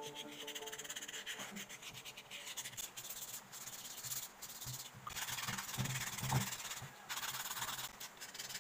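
Hands rubbing and peeling at a wet white-cement (gypsum) vase cast as it is worked free of its mould: a crackly rubbing scrape with many small clicks.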